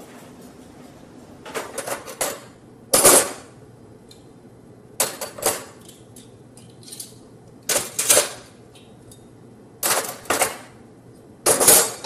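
Metal silverware clattering and clinking as pieces are handled and dropped into a plastic cutlery tray in a kitchen drawer. It comes in six short bursts, about every two seconds, loudest about three seconds in and near the end.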